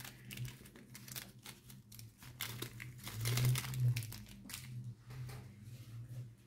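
Small plastic bags of diamond painting drills crinkling and rustling as they are handled, with light clicks of plastic, loudest about three to four seconds in.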